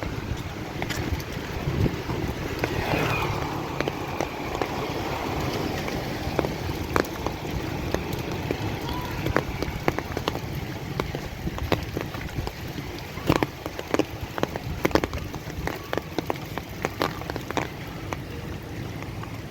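Rain falling steadily, with sharp irregular taps of drops landing close by, thickest in the second half, over a low rumble.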